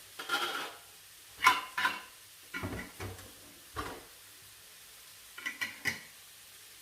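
Dirty dishes, pots and utensils being handled and set down: a string of separate clatters and knocks, the loudest about a second and a half in.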